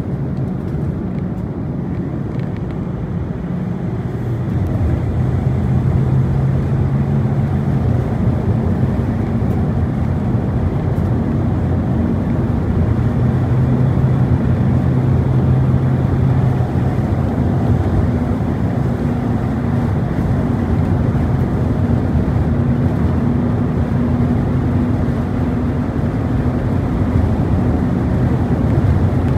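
Vehicle driving on a highway, heard from inside the cabin: a steady low drone of engine and tyre road noise that grows a little louder about five seconds in.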